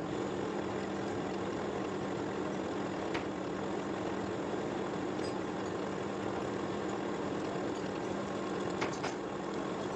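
Metal lathe running at a steady speed, its spindle and chuck turning a gear blank, giving an even mechanical hum. Two faint ticks stand out, about three seconds in and near the end.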